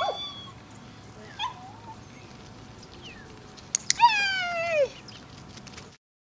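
Several short animal cries falling in pitch, the loudest and longest about four seconds in, with a few sharp clicks just before it; the sound cuts off near the end.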